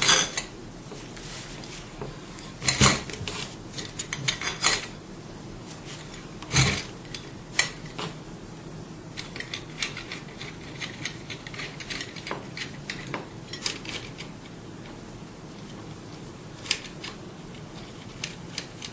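Hand-tightening the screws that hold the pump housing of an oil-free vacuum pump: scattered small metal clicks and ticks of a hand tool working the screws. There are a few louder knocks in the first seven seconds.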